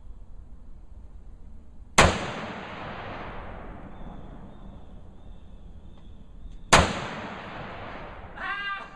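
Two gunshots about four and a half seconds apart, each a sharp crack followed by a long echoing tail.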